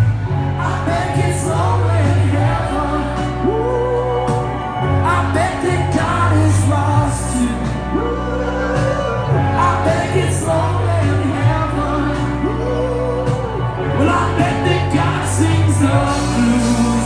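Live rock band performance: a male lead singer holds long, wavering notes over guitars, bass and drums.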